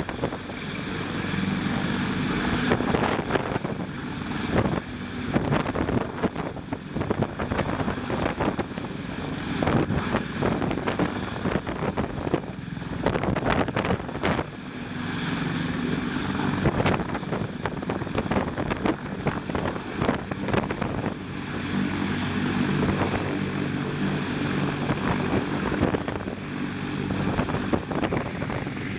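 CH-53K King Stallion heavy-lift helicopter hovering overhead, its main rotor and turboshaft engines running with a steady low drone under a broad noisy rush. The level rises and falls unevenly throughout.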